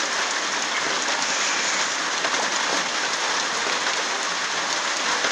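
Rain and streams of rainwater pouring into a full plastic water drum, splashing steadily on the churning water surface.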